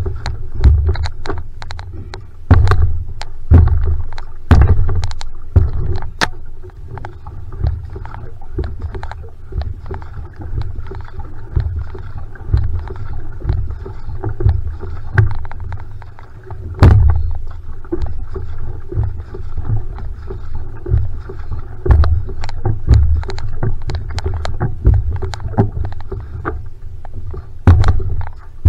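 Outrigger canoe being paddled at a steady stroke: the paddle catching and pulling through the water with splashes, the water rushing along the hull, and a low rumble that surges about once a second with each stroke, dotted with sharp clicks and knocks.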